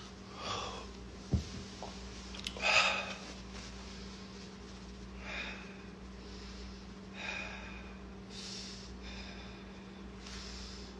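A person breathing close to the microphone: several short breaths a couple of seconds apart over a steady low hum, with a single thump about a second and a half in.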